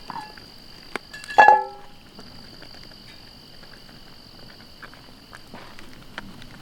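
Steady, high-pitched chorus of night insects or frogs. About a second and a half in, a single sharp ringing clink, like metal or a utensil striking a pot, is the loudest sound.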